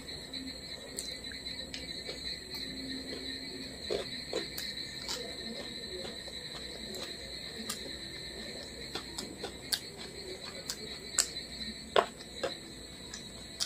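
Close-miked hand eating: fingers mixing rice and fried fish on a plate, then a mouthful taken and chewed, with scattered sharp clicks, the loudest about twelve seconds in. A steady high-pitched whine runs underneath throughout.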